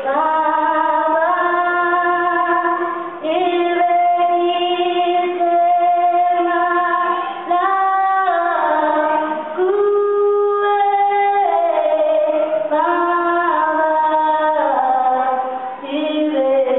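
Background music: a woman singing a slow song, holding long notes that step up and down in pitch.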